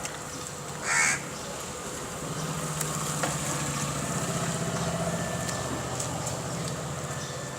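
A short, harsh, noisy call about a second in. From about two seconds in comes a steady low engine hum, as of a motor vehicle running, which swells a little.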